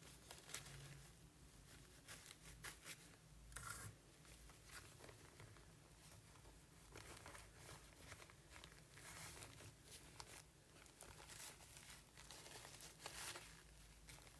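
Faint, scattered rustling and crinkling of a paper napkin being handled and folded around a wad of cotton.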